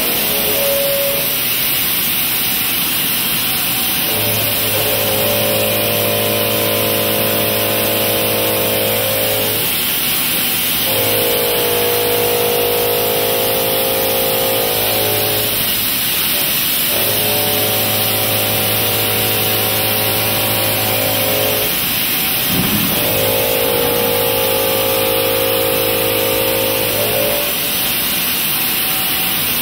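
Indexable-insert milling cutter taking passes through steel in a vertical mill: a steady pitched hum with overtones while the cutter is engaged, in four passes of about five seconds with short breaks between them, over a constant hiss.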